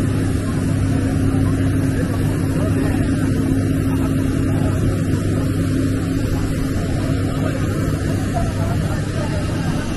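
Steady noise of a parked jet airliner running: a low hum with a steady higher tone over an even hiss.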